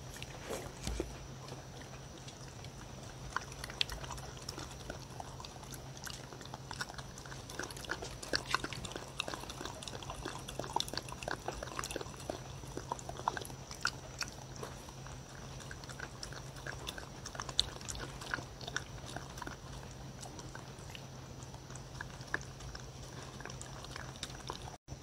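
Dog lapping up a wet blended banana-and-melon mash from a wooden bowl: an irregular run of quick, wet licking clicks and slurps.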